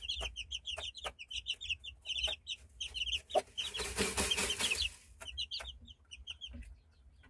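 Newly hatched Índio combatente game-fowl chicks peeping, short high peeps coming several times a second and thinning out after about five seconds. A brief rustle sounds around four seconds in.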